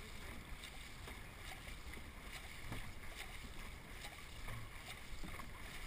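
Dragon boat crew paddling in unison: a steady rhythm of paddle strokes catching and pulling through the water over a constant rush of water along the hull.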